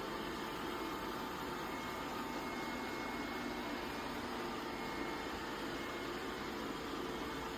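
A robot vacuum's motor and suction fan running steadily: an even whir with a faint hum.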